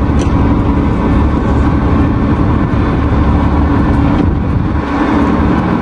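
Steady low engine rumble with a constant hum on the car deck of a road ferry, as vehicles start coming aboard.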